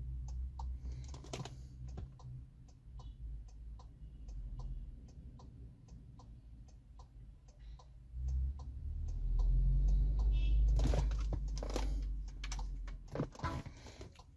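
Skoda Superb hazard warning flasher ticking at a steady even rhythm, about three clicks a second, over a low hum. From about eight seconds in, a louder low rumble and a few knocks come in on top.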